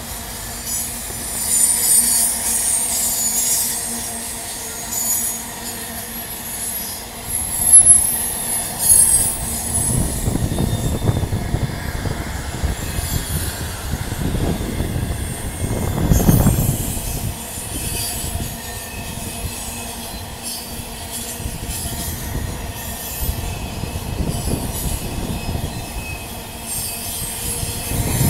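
Freight train wagons rolling past on a sharp curve. There is high-pitched wheel squeal through the first ten seconds or so, then a heavier rumble and clatter of the wheels, loudest about sixteen seconds in.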